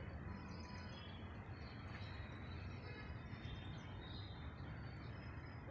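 Faint, steady low rumble of outdoor background noise with scattered bird chirps.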